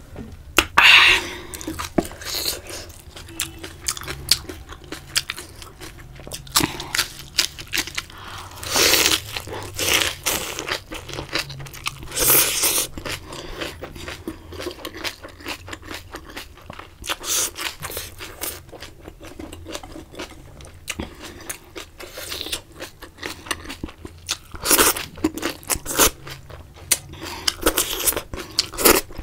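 A person chewing a mouthful of food close to the microphone: irregular wet clicks with louder bursts every few seconds.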